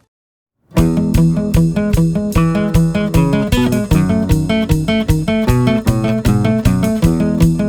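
Background music: after a short silence, a guitar piece starts abruptly, strummed with a steady beat.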